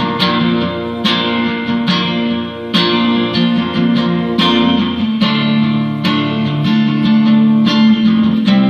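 Acoustic guitar strummed and picked in a steady rhythm, an instrumental passage of a song with no voice.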